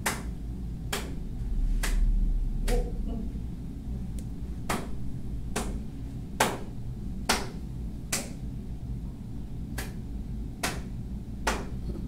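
Single hand claps at an even pace of a little over one a second, clapping out a count to time a held facial exercise. The claps pause briefly after about three seconds and again around eight seconds in.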